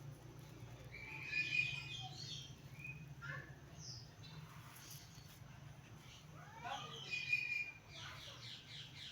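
Grand eclectus parrot calling in several separate bursts of short, pitched calls, the loudest about a second and a half in and again near seven seconds, ending in a quick run of repeated notes. A steady low hum lies underneath.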